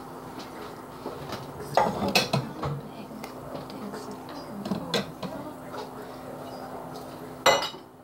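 Dishes and cutlery clattering as a dishwasher is unloaded: a cluster of clinks and knocks about two seconds in, another near five seconds, and the loudest clatter just before the end, over a steady low hum.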